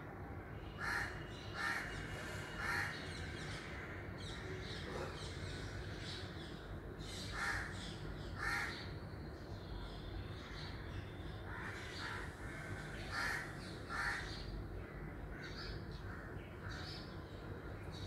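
Crows cawing: short, harsh caws in little runs of two or three, about a second apart, with pauses of several seconds between runs. A steady low background rumble runs underneath.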